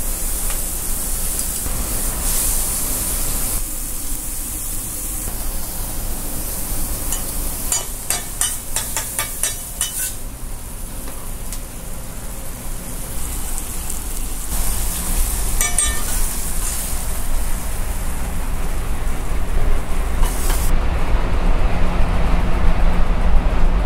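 Wagyu steak and sweet peppers sizzling on a flat-top griddle at about 400–450 degrees, with a quick run of sharp clicks from a metal spatula chopping and scraping on the steel near the middle and a few more later. The high sizzle cuts off suddenly near the end.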